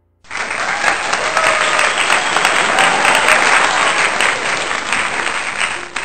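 Applause from a crowd, a dense clapping that starts suddenly and cuts off abruptly, as a sound effect added at the end of the video does.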